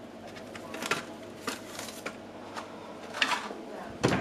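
A string of short scrapes and clicks from things being handled, with a scratchy cluster about three seconds in and a louder knock near the end.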